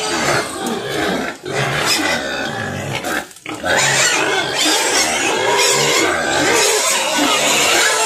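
Pigs squealing loudly and continuously for feed, with two brief lulls, about a second and a half in and again around three and a half seconds.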